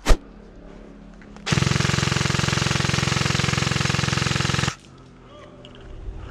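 A single sharp snap right at the start, then an airsoft rifle, the shooter's G&G AR15, firing one long full-auto burst of about three seconds: a fast, even rattle of shots that stops abruptly.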